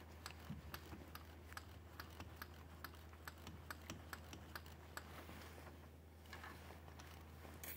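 Socket ratchet clicking as it is worked on a bolt at the fuel injectors: a run of light, uneven ticks, about three or four a second, that thin out after about five seconds, then a short rustle and one sharper click near the end.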